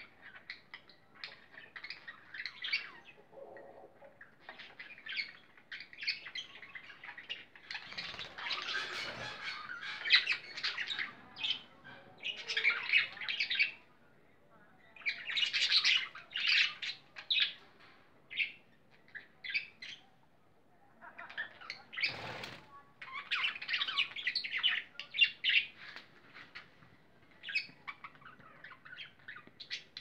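Small parrots, budgerigars with a lovebird among them, chattering in rapid clusters of short, shrill chirps and squawks, with brief lulls between. Two louder, fuller bursts come about nine and twenty-two seconds in.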